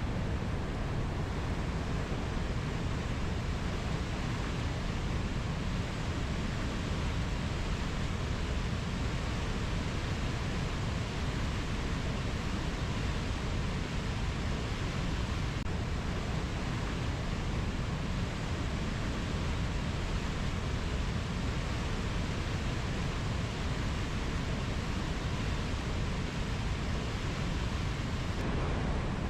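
Steady, even rushing noise, heaviest in the low end, with no calls, drips or other distinct sounds on top.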